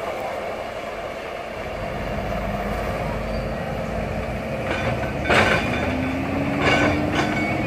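Kobelco crawler excavator's diesel engine running steadily as the machine swings and works its bucket in a dirt pile. From about five seconds in a whine rises slowly in pitch, and three sharp knocks stand out above the engine.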